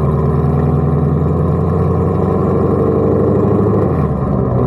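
Engine and exhaust of a modified 800-horsepower American muscle car, fitted with Kooks long-tube headers and an AWE exhaust, running steadily while the car drives, heard from inside the cabin with the windows down.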